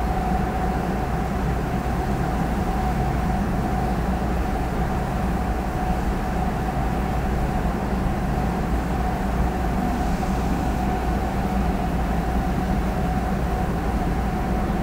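Sapporo Municipal Subway Tōhō Line rubber-tyred train heard from inside the car as it runs between stations: a steady low rumble with a constant whine held throughout.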